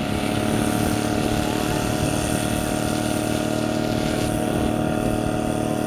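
Portable fire pump's petrol engine running steadily at high speed, a constant engine drone with a fixed pitch, while it pumps water through the hose lines to the branches.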